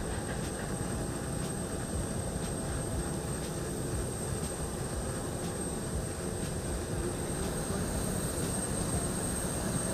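Steady aircraft engine noise on an airport apron: a constant rumble with a thin, steady high whine over it.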